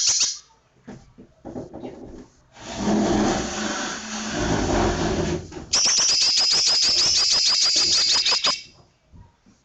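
Cucak ijo (greater green leafbird) singing its rapid 'shot' phrases: a train of sharp, high repeated notes for about three seconds in the second half, with the tail of another such train cutting off at the very start. Between them come a few scattered clicks and a rough, noisy stretch of about three seconds.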